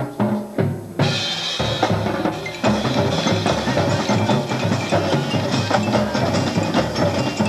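High school marching band playing on the field: the drumline's bass and snare drums beat out a rhythm, and about a second in the whole band comes in at full volume.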